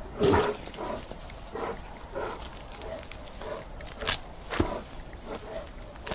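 A grizzly bear making a series of short vocal sounds about every half second, the loudest just after the start, with a sharp click about four seconds in.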